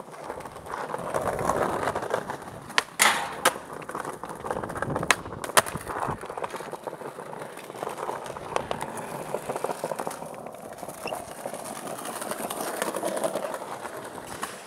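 Skateboard wheels rolling over tiled paving, a continuous rumble, broken by several sharp clacks of the board popping and landing about three seconds in and again around five to six seconds in.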